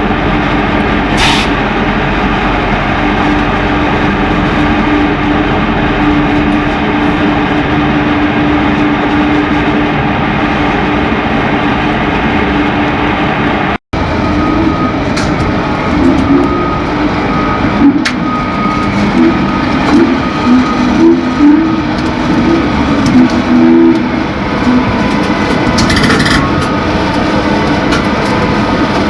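Heavy electric mining machinery running loudly and continuously, likely the drive machinery of a Bucyrus 495HR electric rope shovel. A steady hum carries the first half. After a brief break about fourteen seconds in, the tones shift and waver and the loudness rises and falls.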